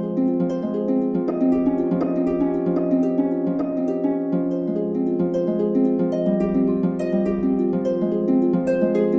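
Background music: a melody and chords of plucked string notes that ring on, over a held low note.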